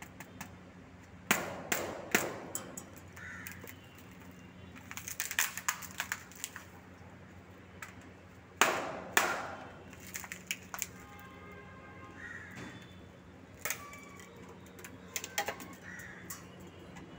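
A tablet computer's plastic case and screen cracking and snapping as it is broken apart by hand. The sharp cracks come in clusters, loudest a little over a second in and again around nine seconds in.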